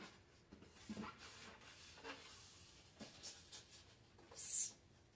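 Styrofoam cooler being handled: a few faint light knocks and rubs, then a short, loud, scratchy scrape near the end as the foam slides against the table saw's top.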